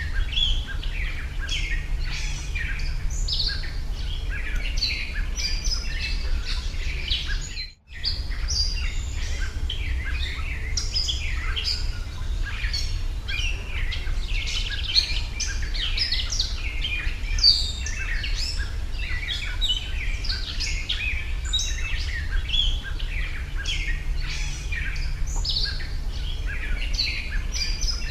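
Many small birds chirping and calling continuously in quick overlapping notes over a steady low background rumble, with a brief break in the sound about eight seconds in.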